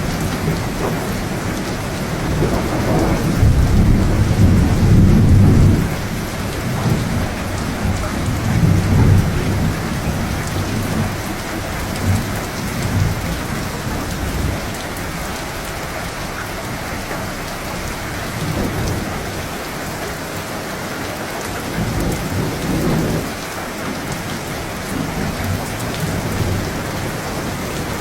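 Steady rain with low, rolling thunder. The loudest rumble swells a few seconds in and lasts a few seconds; weaker rumbles come about halfway through and again near the end.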